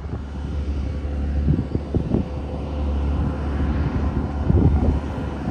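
Heavy diesel truck engine running with a steady low drone, getting louder about four and a half seconds in.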